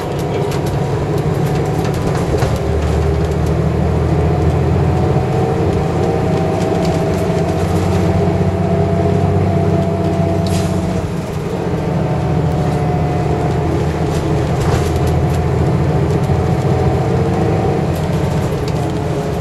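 Hino Blue Ribbon II city bus with a five-speed manual gearbox, heard from inside the cabin while driving: the engine runs steadily under load, with a short dip about eleven seconds in, where the driver changes gear, before it picks up again.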